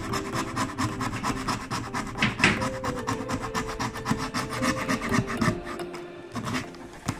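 Hand scraper scraping an old shellac finish off a wooden surface in rapid repeated strokes, quieter toward the end.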